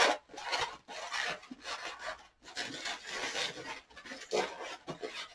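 Latex 260 modelling balloon squeaking and rubbing against itself and the hands as it is twisted into pinch twists: a run of short, irregular squeaks, the loudest right at the start.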